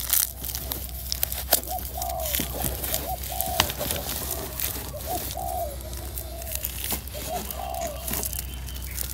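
Plastic crinkling and crackling with sand scraping as hands work around a plastic-wrapped root ball and dimpled plastic sheeting. Short bird calls repeat in the background about once a second.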